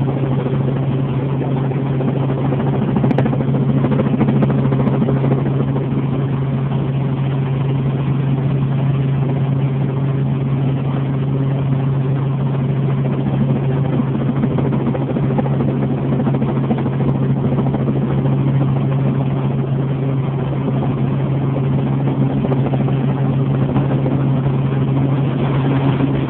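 Helicopter engine and rotor heard from inside the cabin in flight, a loud, steady, unbroken drone with a strong low hum.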